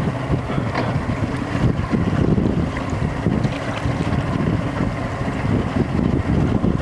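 Wind buffeting the microphone as a steady low rumble, with sea water sloshing around the boats.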